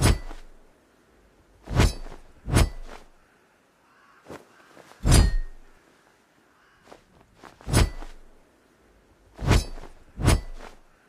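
Cutlass blade being struck, giving sharp metallic clangs that ring briefly. Seven hits come at uneven spacing, some in quick pairs about a second apart.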